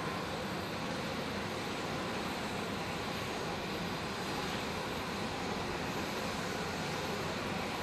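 Steady turbine noise from a CH-53E Super Stallion helicopter running on the ground.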